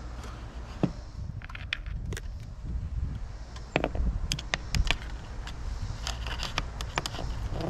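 Scraping and handling noise with scattered sharp clicks, from reaching into a tight space in the boat to fish out a dropped light bulb, over a steady low rumble.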